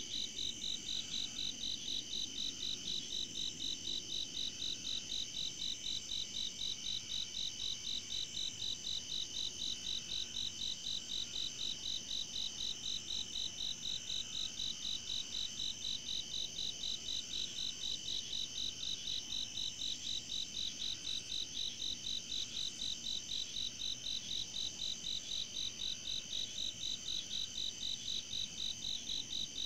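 Night insect chorus: crickets chirping in a fast, even rhythm over a steady high trill.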